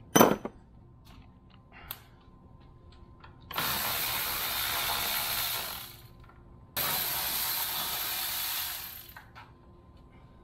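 A sharp clank, then a ratchet wrench run twice for about two and a half seconds each, spinning corroded terminal nuts off golf-cart lead-acid battery posts.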